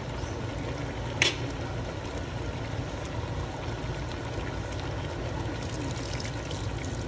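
Vinegar poured from a cup into a hot stainless-steel pot of pork pieces, coming in with a crackle near the end. There is a single sharp knock about a second in, over a steady low hum.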